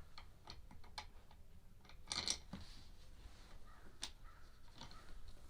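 Light clicks and knocks of plastic leaf-blower tube parts being handled and pressed together, with a louder scrape about two seconds in.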